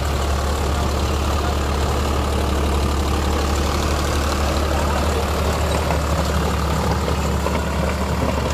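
Deutz-Fahr tractor's diesel engine running steadily while tilling, a constant low drone.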